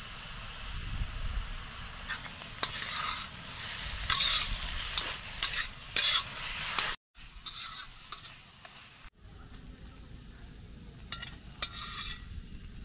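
Paneer, capsicum and onion sizzling in a metal kadai while a metal spatula stirs and scrapes against the pan in repeated strokes. The sound cuts off abruptly twice, about seven and nine seconds in, and is quieter afterwards, with a few more scrapes near the end.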